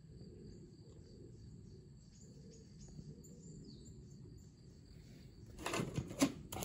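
Faint outdoor ambience: steady high-pitched insect trilling with a few small bird chirps over a low rumble. Near the end come a few louder knocks and scuffs.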